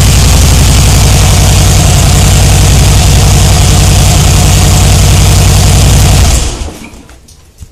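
Harley-Davidson Softail FXS Blackline's 103 cubic inch V-twin idling steadily through its stock exhaust with a loud, pulsing low beat, then shut off about six seconds in, the sound dying away within half a second.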